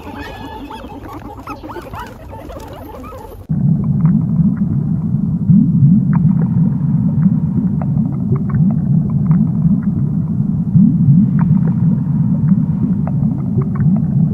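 Guinea pig squeaking for about three and a half seconds, then an abrupt switch to a loud, low underwater rumble with scattered faint clicks.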